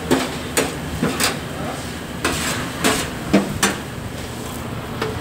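Irregular sharp knocks and clatter of metal kitchen utensils on steel, about seven in all, over a steady low hum.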